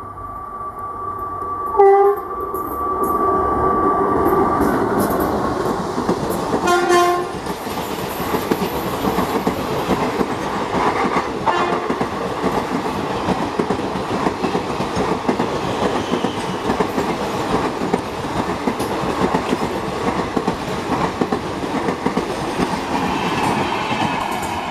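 Indian Railways WAP-4 electric locomotive sounding two short horn blasts as it approaches, about two and seven seconds in. Then its passenger coaches run past at speed with steady wheel clatter and rushing noise.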